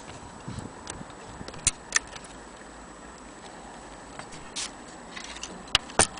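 Irregular sharp clicks and light metallic knocks from a Hermle clock movement's brass works and dial plate being handled; the two loudest come close together near the end.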